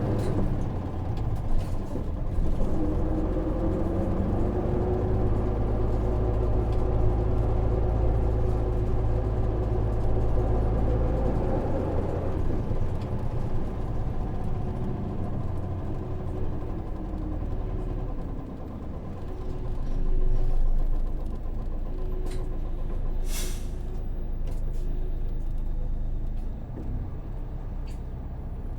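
Interior running sound of a 2005 Hino PJ-KV234L1 city bus with a 6HK1 diesel engine and a five-speed manual gearbox. The engine pulls hard with its pitch rising for about the first twelve seconds, then eases to a lighter, steadier cruise. A short hiss of released air comes about twenty-three seconds in.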